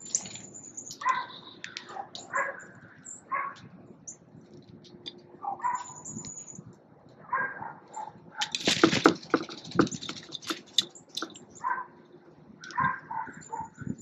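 Backyard birds calling: thin, high chirps and whistles over a run of short, harsher calls repeated every second or so. A loud, rustling flurry comes about two thirds of the way through.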